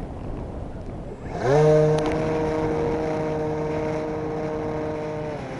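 Radio-controlled model plane's motor spinning up with a rising whine as it is throttled up for takeoff, then running steadily at high power.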